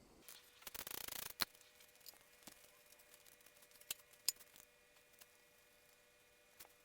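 Hand tools working on a motorcycle's rear brake line and foot-control fittings: a short run of rapid clicks about a second in ending in a sharp click, then a few light metallic ticks.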